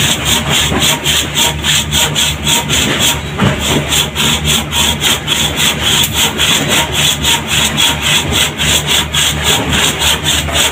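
Handsaw cutting through a wooden deck plank, in fast, even strokes of about four a second.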